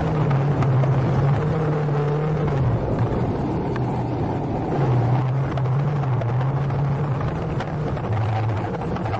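Vehicle engine running under load on a rough off-road climb, its pitch dropping and rising a few times as the revs change, over a noisy rumble.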